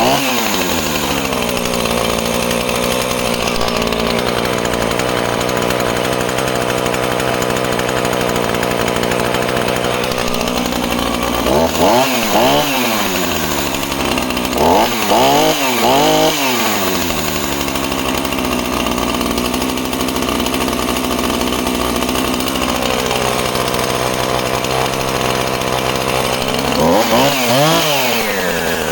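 Husqvarna 455 two-stroke chainsaw engine running just after a pull-start on choke, dropping back to idle and then revved in quick throttle blips several times, around the middle and near the end.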